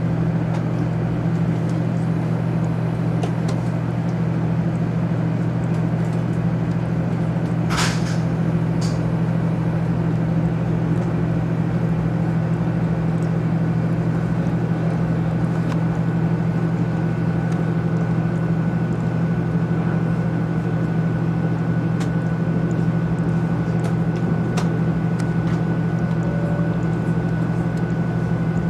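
Steady low hum and rumble inside the cabin of a 500 series Shinkansen (the Hello Kitty train) running along the line. There is a brief sharp hissing click about eight seconds in, and a fainter one a second later.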